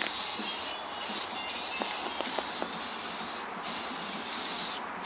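Aerosol can of primer spraying in short passes, about six bursts of hiss, each under a second, as another coat of primer goes on.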